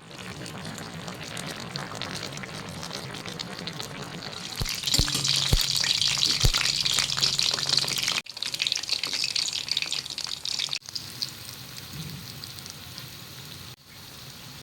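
Food sizzling as it fries in a pan, louder and brighter for a few seconds in the middle, with a few light knocks. The sound cuts off suddenly several times.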